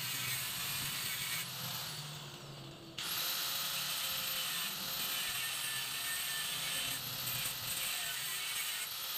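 Handheld power tool running with a high whine and a steady hiss on the motorcycle frame. About a second and a half in it is let off and winds down, then it starts again abruptly at full speed near the three-second mark and runs on with a few short breaks.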